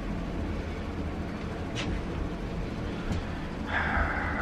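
Elevator car running slowly: a steady low rumble and hum, with a couple of faint clicks. Near the end a brief hiss rises over it.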